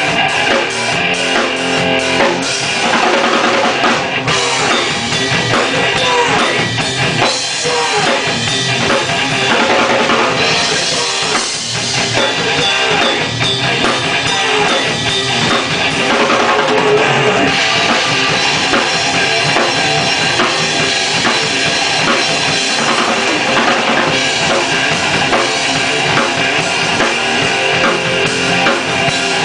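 Yamaha Maple Custom drum kit played by a rock band, with kick drum, snare and cymbals, together with electric guitar.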